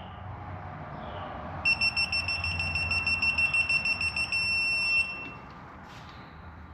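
Digital torque-angle wrench beeping: a high electronic tone, fluttering, held for about three seconds. It signals that the bolt has reached the set 180-degree turn.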